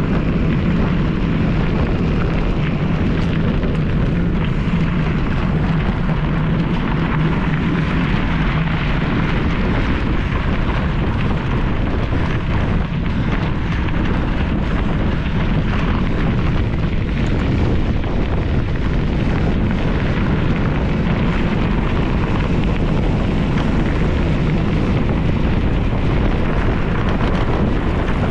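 A mountain bike ridden fast over a rough trail: wind rushing over the camera microphone, with the bike rattling and clattering all the way through. A steady low hum fades out about nine seconds in.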